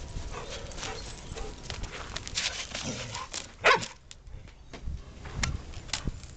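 A dog barks once, sharply, about three and a half seconds in, over a run of crunching steps on sleet-crusted snow as dogs play.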